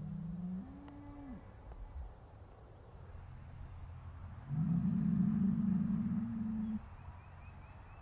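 Cows mooing: a low moo ends about half a second in, a shorter moo rises and falls around one second in, and a long, loud, drawn-out moo comes from about 4.5 s to nearly 7 s.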